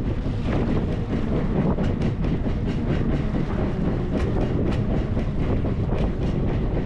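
Small fishing boat at sea: a steady low rumble with a running clatter of irregular knocks and clicks.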